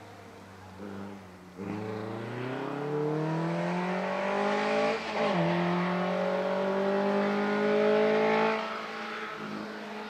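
Škoda 130 RS racing car's engine revving hard as it accelerates away: the pitch climbs from about a second and a half in, drops sharply at a gear change around five seconds, climbs again, then falls off near the end as the car lifts and the sound fades into the distance.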